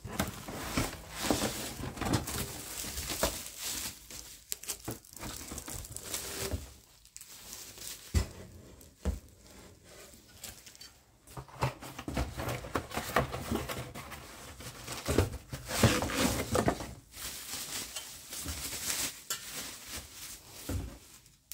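Plastic packaging crinkling and a cardboard box rustling as hands unpack tumblers, with scattered light knocks and clicks. It eases off for a few seconds in the middle, then picks up again.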